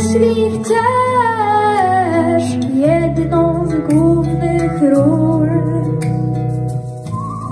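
A boy singing into a microphone, long notes that slide down and then up, over a backing track with guitar and bass.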